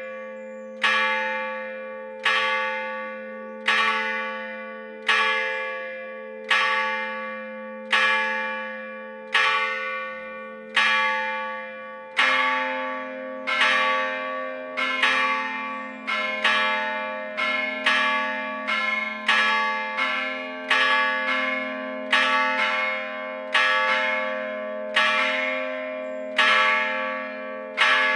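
Church bells cast by the Gescher foundry, struck by hammer rather than swung. The largest bell tolls alone, about one stroke every second and a half. About twelve seconds in, the second bell joins, and the two sound in alternating strokes, each ringing on as it fades.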